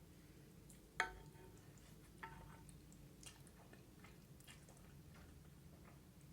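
A utensil clinks sharply against a dish about a second in, with a brief ring. A lighter clink follows a little over a second later, then soft scattered ticks of eating.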